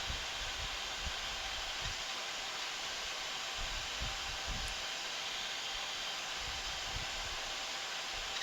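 Steady rushing hiss in an Embraer 175's cockpit on final approach, with the gear down and flaps set, and a few faint low bumps.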